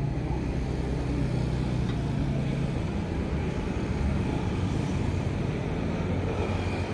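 A motor vehicle's engine running steadily with a low hum.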